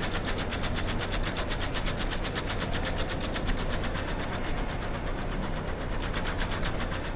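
Split-flap display sound effect: an even, rapid clatter of flipping flaps, about nine clicks a second.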